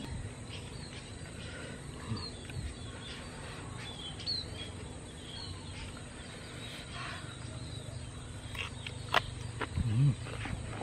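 A man eating fried bird meat with his fingers: faint chewing and lip smacks, then near the end a louder, low voiced puff of breath through puffed-out cheeks. Faint short bird chirps come now and then.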